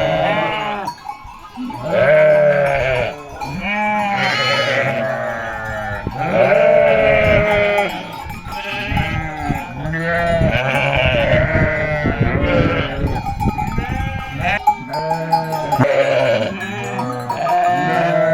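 A flock of sheep bleating continuously, many calls overlapping.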